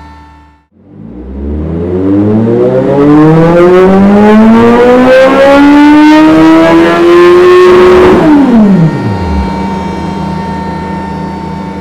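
Kawasaki Z1000SX inline-four motorcycle engine in one long full-throttle pull, its note climbing steadily for about seven seconds as revs build. Then the throttle shuts and the revs drop away quickly, with steady music underneath near the end.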